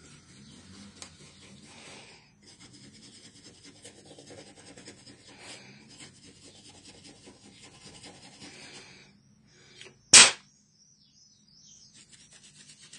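Flat bristle paintbrush sweeping dust across a wooden desktop, a soft scratchy rubbing for about nine seconds. About ten seconds in there is one short, loud burst of noise, the loudest sound, and faint rubbing returns near the end.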